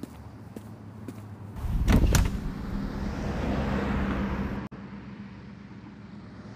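Outdoor traffic rumble, with a road vehicle swelling loudly past about two seconds in. A steady low hum follows and drops away suddenly.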